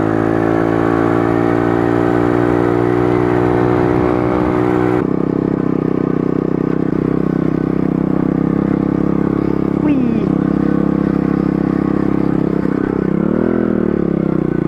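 Pit bike engine running as the bike rides along, its pitch easing slowly down for the first few seconds. The sound changes abruptly about five seconds in, then runs steady, with a brief rev up and back down near the end.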